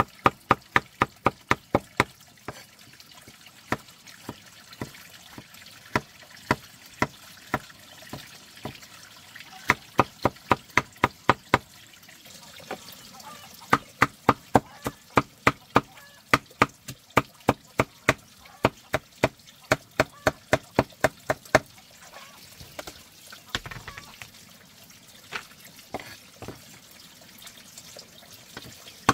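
Rapid, evenly spaced sharp knocks, about four a second, in runs of several seconds with short pauses between, like repeated chopping or hacking strokes.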